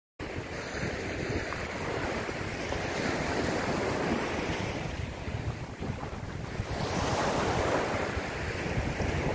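Small sea waves breaking and washing up a sandy beach, with wind buffeting the microphone. The sound cuts in abruptly, and the wash swells louder twice, about three and seven seconds in.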